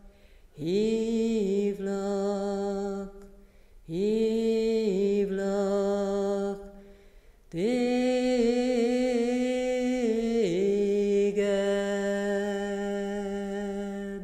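A voice singing three long, held notes in a slow chant, each sliding up into its pitch; the third is held for about seven seconds and is the song's final note, stopping at the end.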